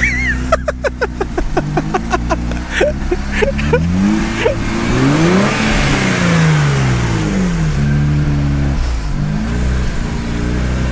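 Nissan 370Z's swapped VR30DDTT twin-turbo 3.0 V6 being free-revved through the factory exhaust, the revs rising and falling several times, with the biggest rev near the middle. There is no blow-off valve sound, which the owner puts down to the turbos not building boost without load. A rapid run of clicks is heard during the first few seconds.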